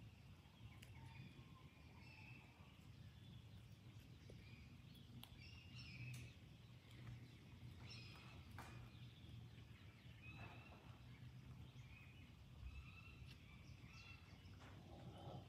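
Near silence: faint outdoor ambience with scattered short bird chirps over a low steady hum, and a few brief clicks.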